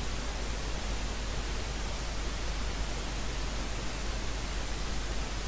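Steady, even hiss with a low hum underneath, unchanging throughout, like running water or a light breeze.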